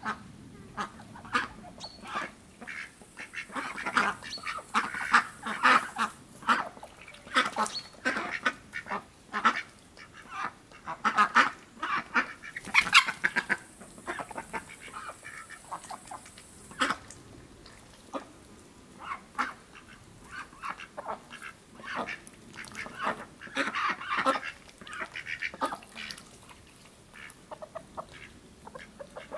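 Domestic ducks quacking over and over while feeding from metal bowls, mixed with many short sharp clicks from their bills.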